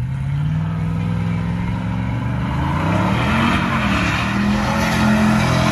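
Pickup truck engine held at high revs while spinning donuts, its pitch swelling up and back down about three seconds in, then holding higher, with tyres squealing on the asphalt more and more toward the end.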